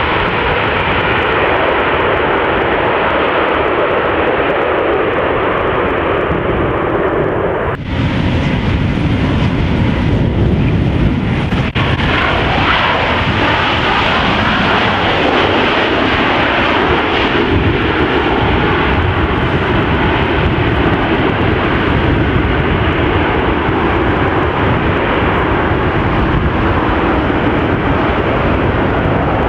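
Airliner jet engines running loud and steady on a snow-covered runway. The sound changes abruptly about eight seconds in, where one airliner gives way to another.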